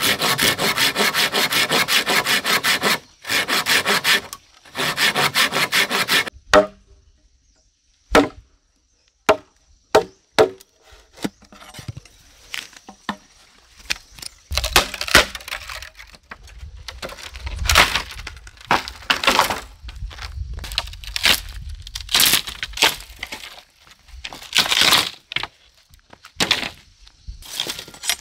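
A blade sawing quickly back and forth through a green bamboo pole in three runs, then single knocks on the bamboo. In the second half come irregular sharp cracks and splintering as the bamboo is split lengthwise with a machete.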